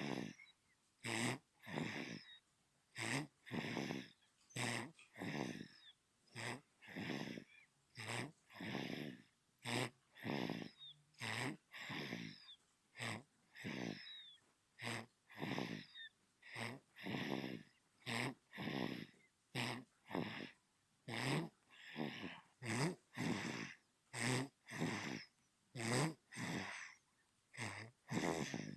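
Newborn baby snoring in sleep: short, regular snoring breaths, a little more than one a second.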